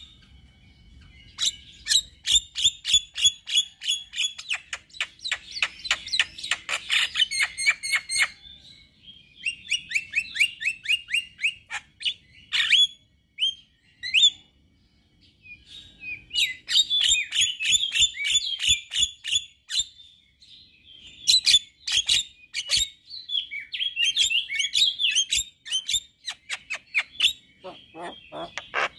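Male Javan myna (jalak kebo) singing a chattering song of rapid clicks and harsh notes, in long runs broken by brief pauses.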